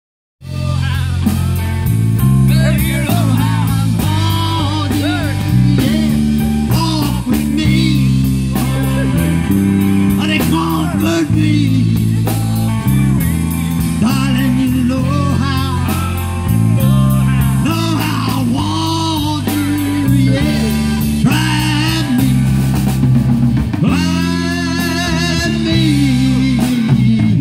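Live band playing a blues-rock song: a man singing into a microphone over electric guitar, bass guitar and a drum kit.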